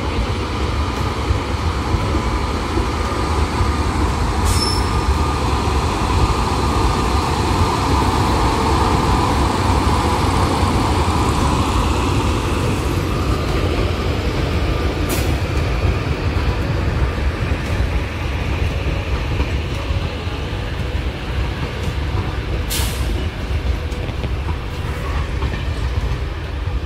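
Doon Express passenger train pulling slowly into the platform: a steady rumble of wheels on rail, with a squeal that swells and fades around the middle. Three sharp clicks come through during the pass.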